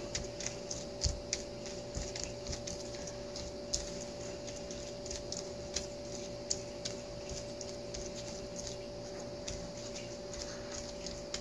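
Scattered light taps and knocks at irregular times over a steady hum.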